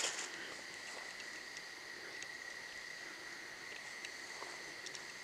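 Steady chorus of night insects, a continuous high-pitched trill, with a brief rustle or knock right at the start.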